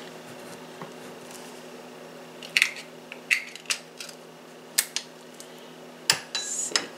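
A utensil clinking and knocking against a metal can of condensed cream of celery soup as the soup is scraped out: about seven sharp, separate knocks in the second half.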